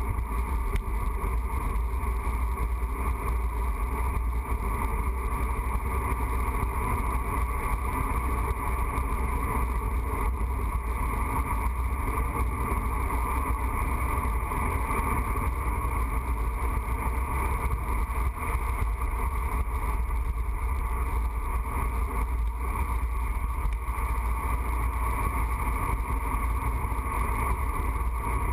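Wind rushing over the microphone of a handlebar-mounted camera on a moving road bicycle: a steady, unbroken roar with a heavy low rumble.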